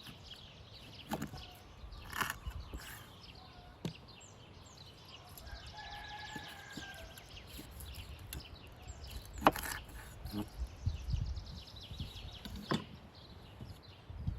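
Rural outdoor background with small birds chirping and a rooster crowing once for about a second and a half in the middle. A few sharp knocks break in, the loudest about two-thirds of the way through.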